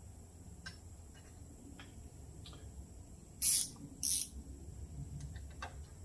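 A thin spring-steel strip being worked into a chainsaw's bar mount: faint light clicks of metal, and two short scraping hisses about three and a half and four seconds in.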